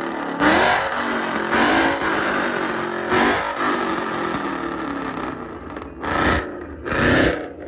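Car engine revving hard again and again, its pitch climbing and falling with each surge. Two sharp rev blips come near the end.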